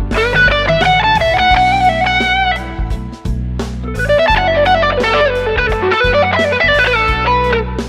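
Electric guitar played through a Joyo American Sound tweed-style amp simulator pedal and a Boss SD-1 overdrive, giving a lightly overdriven tone. It plays melodic lead lines with held, bent and wavering notes, and a descending run about four seconds in.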